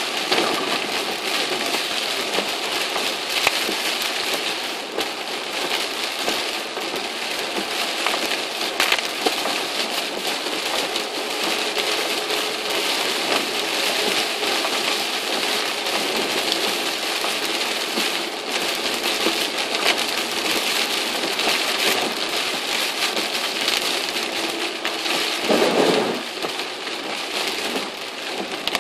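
Heavy typhoon rain falling on a moving car, heard from inside the cabin as a steady loud hiss. A brief louder swoosh comes about three seconds before the end.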